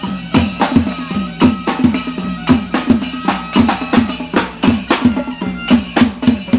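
Loud procession music: drums keep a steady, fast beat of about three hits a second under sustained reed-like melody tones.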